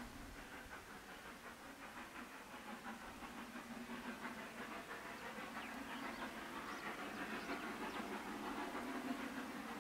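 Distant National Railways of Zimbabwe Garratt steam locomotive working toward the listener, its exhaust a faint, steady chuffing haze that slowly grows louder.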